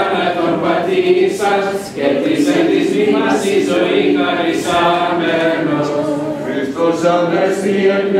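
Orthodox church choir singing a hymn a cappella: several voices chanting words on a shifting melody, with no instruments.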